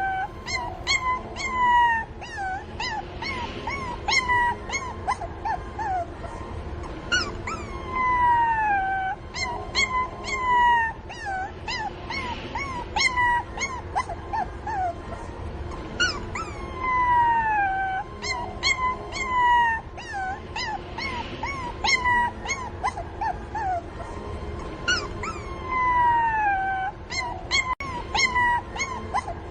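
Puppies whimpering and crying for their mother: long high whines that fall in pitch, mixed with many short squeaky yelps, in repeated bouts.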